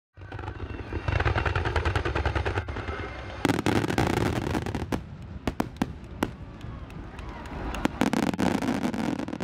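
Aerial fireworks going off: a dense run of rapid crackles over a low rumble, then sharper separate bangs from about three and a half seconds in.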